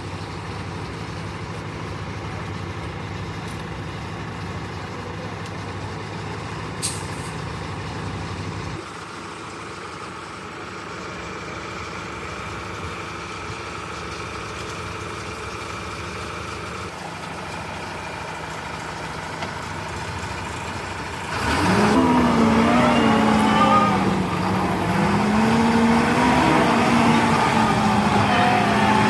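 Heavy truck engine running steadily. About two-thirds of the way through, a much louder engine comes in and revs, its pitch rising and falling. A single brief click sounds early on.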